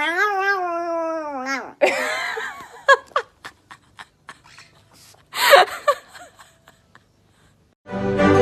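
A chihuahua's drawn-out whining cry lasting about a second and a half, sliding down at the end. It is followed by a short noisy burst, a few scattered clicks and another brief, loud cry about five and a half seconds in. Music starts just before the end.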